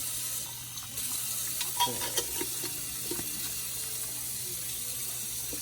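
Water running steadily from a tap, a continuous hiss that starts about a second in, with a few light knocks around two seconds in as the jar is handled.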